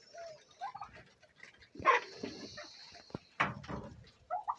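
A dog barking: two loud barks about a second and a half apart, with a steady hiss between them.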